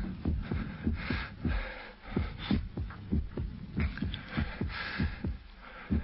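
Radio-drama sound effect of a heartbeat: quick, regular low thumps, with short pauses around two seconds in and again near the end. The heart is skipping every sixth beat after a fright.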